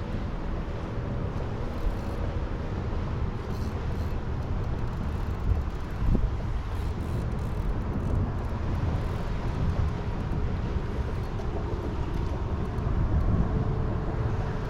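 Steady low rumble of wind buffeting the microphone, mixed with road traffic noise, with a brief knock about six seconds in.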